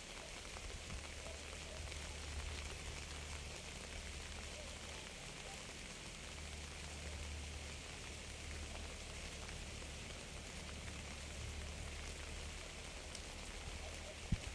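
Steady rain falling, an even hiss of drops with faint scattered patter, over a low steady rumble.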